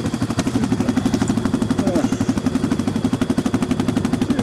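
ATV engine running at low revs close by, with a rapid, even putter.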